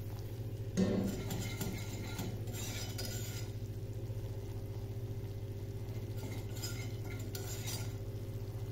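Wire whisk stirring and clinking against a small saucepan as butter and flour toast together into a roux. The clinks come in uneven clusters, the strongest about a second in, over a steady low hum.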